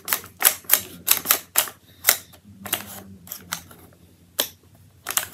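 Airsoft rifle's charging handle being worked by hand: a quick run of sharp clicks and clacks that thins out after about two seconds, with a few more near the end. The handle has to be pulled far back and slid forward, and it doesn't always catch.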